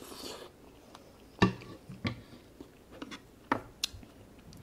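A brief slurp from a spoon at the start, then several sharp knocks of wooden spoons against a stainless steel pan as they are set down, the loudest about a second and a half in.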